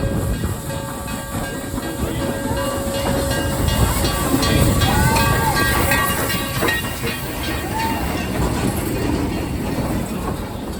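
Train running on the rails, a steady rumble with faint clickety-clack and a few thin, high squealing tones over it.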